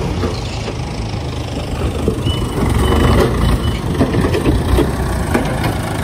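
Heavy diesel engine of earth-moving machinery running with a steady low rumble.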